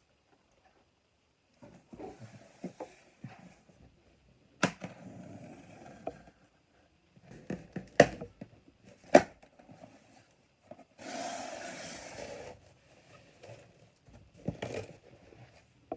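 Handling of a plastic model kit's box and packaging: a few sharp taps and clicks, softer knocks, and a rustle of about a second and a half past the middle.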